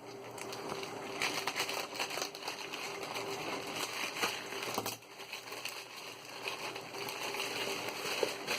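Crinkling and rustling of a smartphone's retail packaging being handled, with scattered light clicks, over a faint steady hum.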